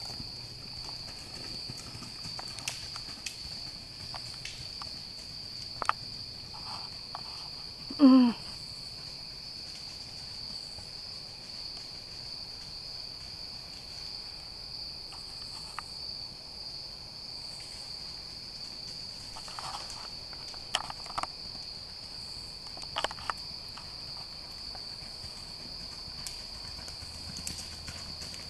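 Steady high-pitched insect chirring, with a few scattered, faint horse hoof strikes. One brief loud call, falling in pitch, comes about eight seconds in.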